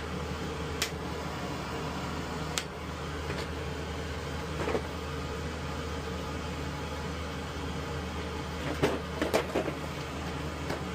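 Scattered light clicks and taps of small parts being handled, with a quick cluster of knocks near the end, over a steady low hum.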